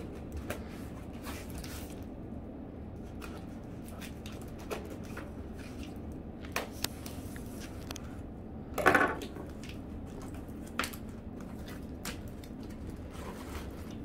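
Utility knife cutting packing tape on a small cardboard box, with scattered short scrapes and taps of cardboard, and one louder brief scrape about nine seconds in.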